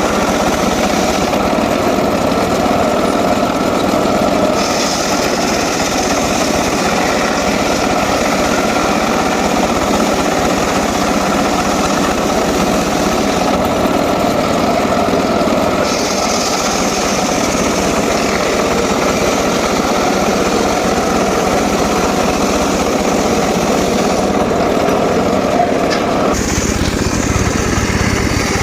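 Homemade circular saw rig running steadily while cutting teak wood. A higher hiss comes and goes three times over the steady running sound.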